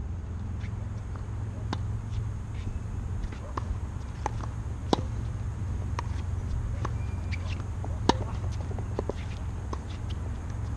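Steady low wind noise buffeting the action camera's microphone, with tennis being played on a hard court: two sharp racket-on-ball hits stand out, about five and eight seconds in, among lighter ball bounces and clicks.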